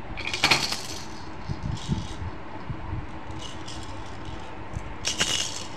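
Plastic baby toys rattling and clattering against each other and a plastic basket as a baby handles them, in a few short bursts, the loudest about five seconds in.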